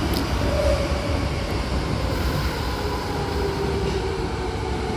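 Osaka Metro Yotsubashi Line subway car running, heard from inside: a steady low rumble with a faint whine that slowly falls in pitch.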